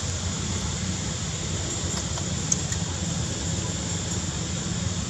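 Steady outdoor background noise: a low rumble under a continuous high hiss, with a single brief click about halfway through.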